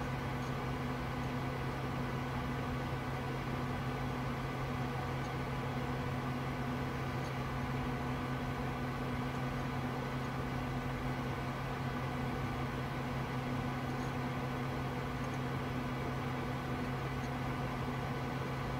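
Steady hum of a running desktop computer's cooling fans and power supply, a constant low drone with a fainter tone above it that does not change.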